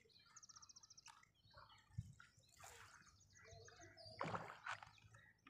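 Faint bird calls: a fast, high trill about half a second in and another high call past the middle. A soft knock about two seconds in and a short rustle of the fishing line being handled about four seconds in, the loudest sound here.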